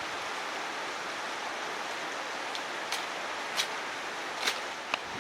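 Steady rush of flowing river water, with a few short sharp clicks in the second half.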